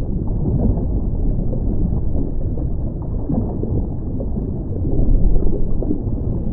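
Steady, muffled low rumble of water, an underwater ambience with the higher sounds cut away. It swells a little about five seconds in.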